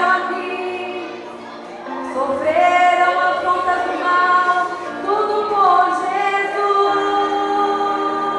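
Music: a Brazilian gospel song with voices singing long held notes that glide between pitches.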